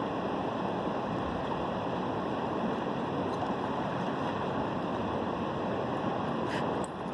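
Fast-flowing river water rushing steadily below a dam, a constant low rushing noise.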